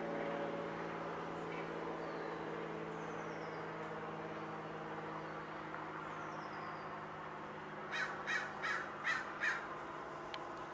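A crow cawing five times in quick succession about eight seconds in, harsh and loud, over a steady low hum.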